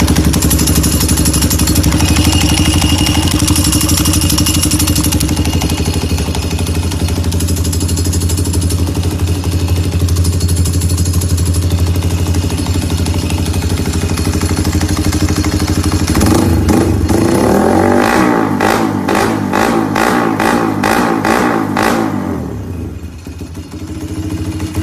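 Modified Yamaha Y15ZR's 150cc single-cylinder four-stroke engine running steadily at idle, then revved in a run of quick throttle blips about two-thirds of the way in before dropping back to idle.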